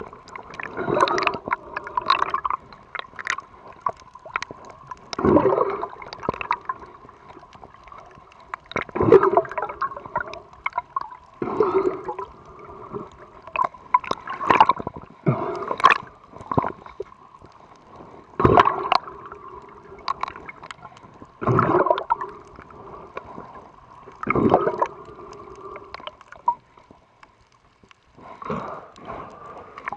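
Muffled water sounds heard from inside an underwater camera housing: gurgling and sloshing that surge every three to four seconds over a quieter underwater wash.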